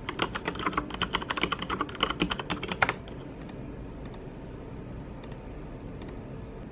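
Typing on a computer keyboard: a quick run of keystrokes for about three seconds, then it stops, leaving a few scattered faint clicks.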